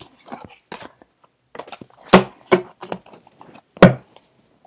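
Tarot cards and small objects handled on a tabletop: scattered light taps and rustles, with two sharp knocks on the table, one about two seconds in and one near the end.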